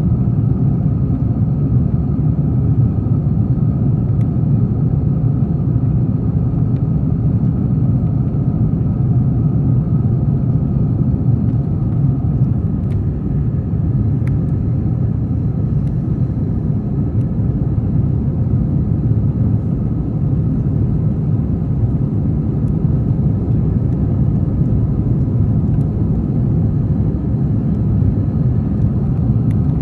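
Steady, loud rumble of an Airbus A321-231 during takeoff, heard from inside the passenger cabin: its IAE V2500 engines and the rushing air blend into one even, low drone with a faint high whine over it.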